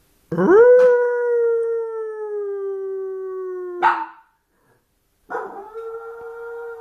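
Maltese puppy crying in long howls. A drawn-out cry of about three and a half seconds slowly drops in pitch and ends in a short rough burst; after a pause of about a second, a second long, steady cry begins.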